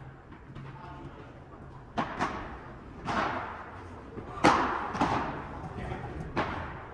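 Padel rally: the ball struck by rackets and bouncing off the court and walls, about six sharp hits, the loudest a little past the middle, each trailing an echo.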